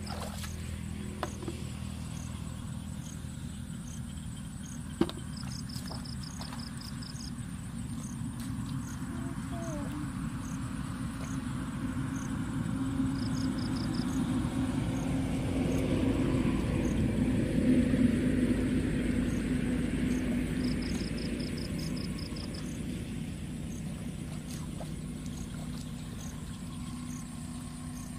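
A truck's engine drones on a road, growing louder to a peak about two thirds of the way through and then fading. Insects chirp in short repeated high trills over a steady high buzz, and there is one sharp click about five seconds in.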